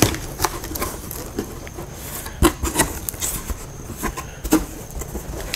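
Cardboard shipping box being opened by hand, its flaps pulled back and handled: a string of irregular scrapes, taps and rustles of cardboard.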